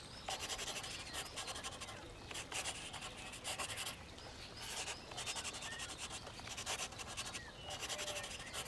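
Black felt-tip marker drawn across paper in a series of long strokes, with short pauses between them.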